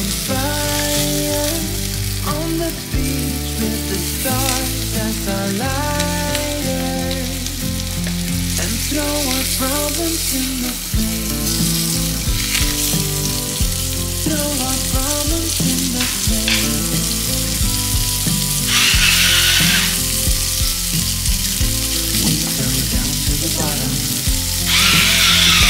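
Onion halves sizzling in oil in a Staub cast-iron pot, a steady frying sizzle, with two brief louder bursts of noise near the end. Background music plays over it.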